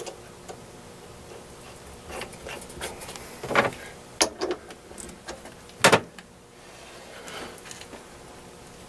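A few sharp metal clicks and knocks as a drill bit is set in a drill chuck and the chuck is fitted into the lathe tailstock. The loudest is a single sharp clunk about six seconds in; the lathe itself is not running.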